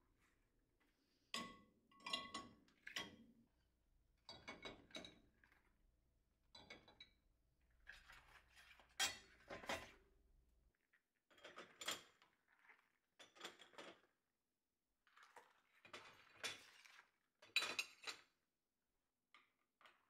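Dishes, bowls and pans clinking and clattering against each other and the wire racks as a dishwasher is loaded, in a dozen or so separate short bursts.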